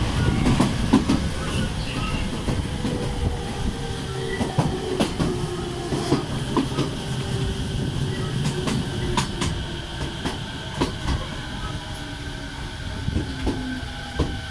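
Electric train on JR East's Uchibo Line running, heard at a slightly open carriage window: a steady rumble with sharp clicks and knocks of the wheels over the rail joints. A thin whine slowly falls in pitch.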